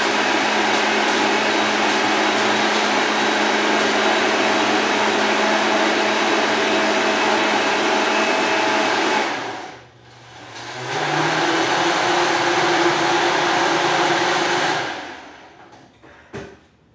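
Electric blender running loud and steady, stopping briefly about two-thirds of the way through, then starting again with its motor speeding up before it winds down near the end.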